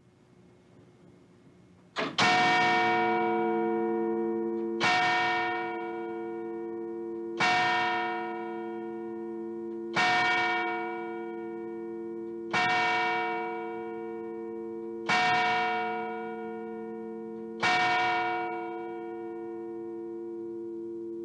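An 1856 courthouse clock bell tolling the hour: seven strokes about two and a half seconds apart. Each stroke rings on into the next, and a low hum is left sounding after the last.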